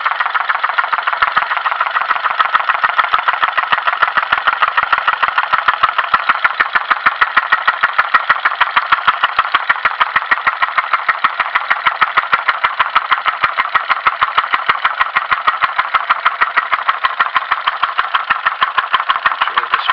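Homemade twin-cylinder Stirling engine running at a steady speed, its moving parts giving an even, rapid clatter of several knocks a second.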